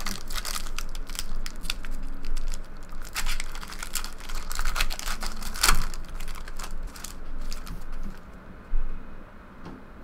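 Silver foil wrapper of a trading-card pack crinkling and tearing as it is pulled open by hand, a dense run of sharp crackles. The crackles thin out near the end, with one sharp crack.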